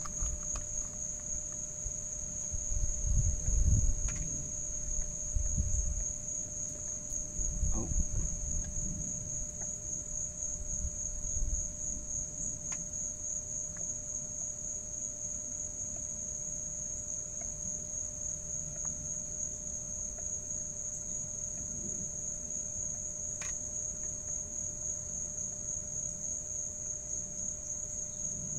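Crickets chirring in a continuous high, fast-pulsing trill. A few low thumps and rumbles come in the first twelve seconds or so.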